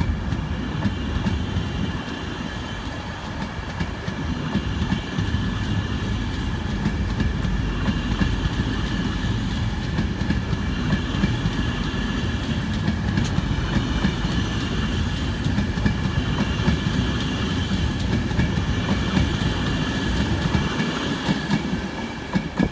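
LNER InterCity 225 train of Mark 4 coaches rolling past, with steady wheel-on-rail noise from the coaches. The noise falls away near the end as the driving van trailer at the rear goes by.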